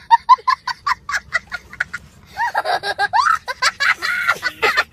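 A young child laughing hard: a quick run of short, high giggles, then longer laughs that slide up and down in pitch.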